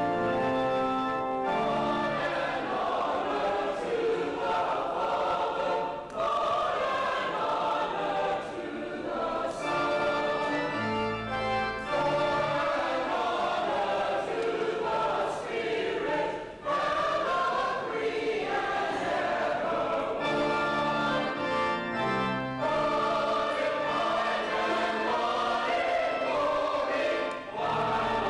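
Church choir singing with pipe or electronic organ accompaniment: several voices in wavering sung lines over steady held organ chords.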